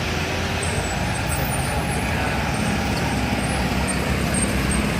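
Road traffic passing: a steady wash of engine and tyre noise, with a lower engine hum growing stronger about halfway through.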